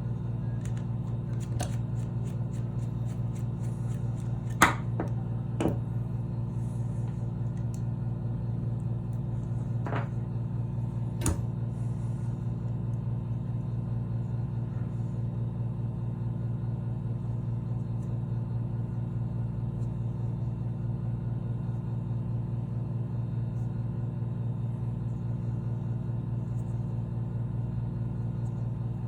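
Sharp knocks and clicks, about five in the first twelve seconds with the loudest near five seconds in, from hand tools working at a bent, jammed door lock, over a steady low hum.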